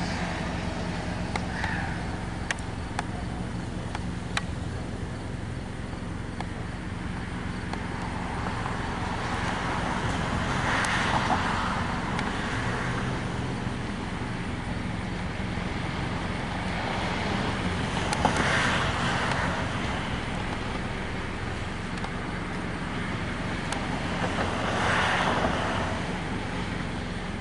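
Road traffic: a steady low engine hum throughout, with three vehicles passing by, each rising and fading over a couple of seconds, several seconds apart.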